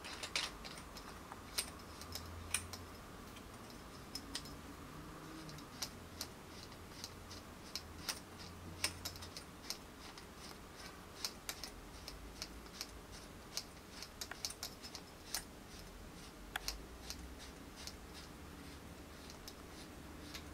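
Irregular light clicks and ticks from screwing a tripod leg into the clamp on a tripod dolly's arm.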